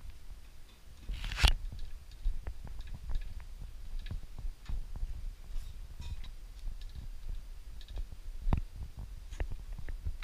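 Scattered light clicks and knocks over a low rumble, with one louder knock about a second and a half in.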